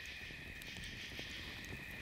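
Night forest ambience: a steady, even high-pitched drone of insects, with a few faint clicks.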